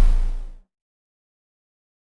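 Electronic dubstep-style background music ending on a heavy bass hit that fades out within about half a second, followed by dead silence.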